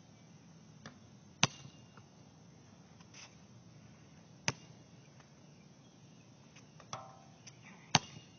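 A basketball striking an outdoor court: single sharp bounces a few seconds apart, the loudest about a second and a half in and again near the end.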